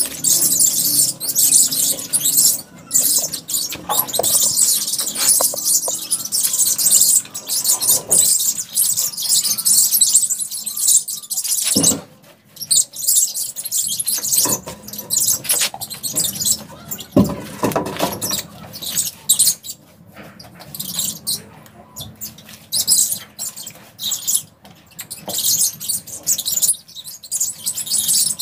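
Paintbrush scrubbing a cement-based waterproofing slurry onto a rough concrete slab: a scratchy bristle hiss in short strokes that stop and start. A brief pause partway through, and a couple of sharp knocks.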